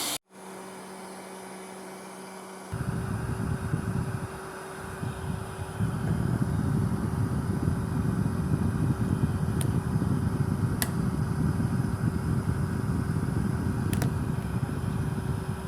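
Heat gun blowing steadily while heating a small plastic card case to soften it. The sound is quieter with a hum at first, turns louder and rougher after about two and a half seconds, and a few faint clicks come through later.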